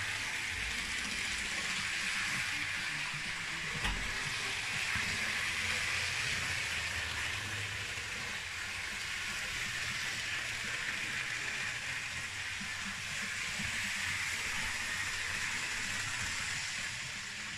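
Model diesel multiple unit running on the layout's track: a steady whirring hiss with a low rumble underneath, and a single click about four seconds in.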